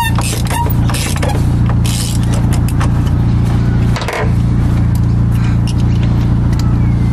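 Toyota 4A-GE 1.6-litre twin-cam four-cylinder engine bay running steadily, with the engine and its electric radiator fans humming. There is a brief handling noise about four seconds in as hands work near the coolant temperature sensor.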